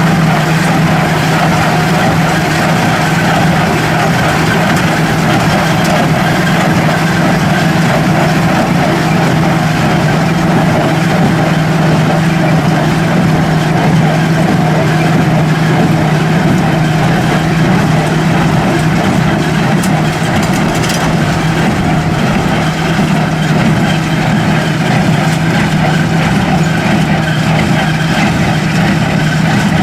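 Heavy farm machinery engine running steadily in the hay field, a constant low hum with no change in speed.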